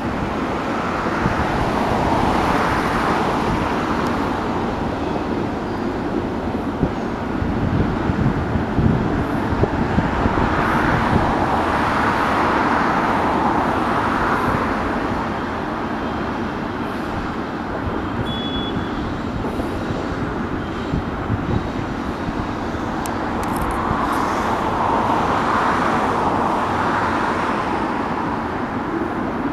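Road traffic with cars passing by, swelling and fading three times: near the start, around the middle and near the end. Beneath it runs a steady low rumble from a doublestack freight train rolling past in the distance.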